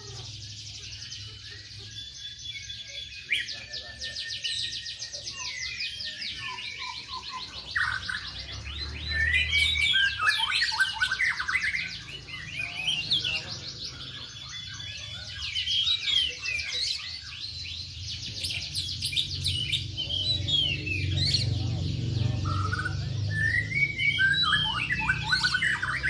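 Many domestic canaries singing at once, overlapping with fast, high-pitched trills and rapidly repeated notes, swelling louder partway through.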